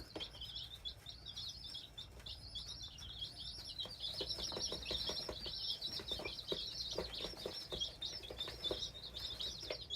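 A brood of about thirty baby chicks peeping nonstop, their high-pitched cheeps overlapping into one continuous chorus, with light taps scattered through.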